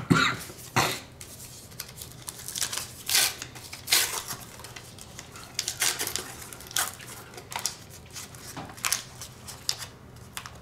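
Baseball cards being squared into a stack on a wooden table, then a foil trading-card pack being handled and torn open, its wrapper crinkling in a string of short, sharp rustles.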